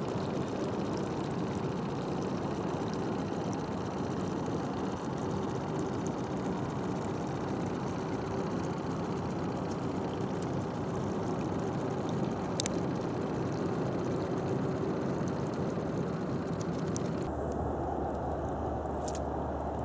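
Boat engine running steadily while under way: a constant hum over a rushing noise. Near the end it cuts off abruptly and a different steady low rumble takes over.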